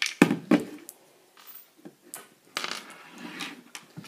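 Sharp plastic clicks and rattles from a homemade Lego candy machine being worked, with small sugar-coated candies clattering onto a wooden table. The clicks come singly, the loudest near the start.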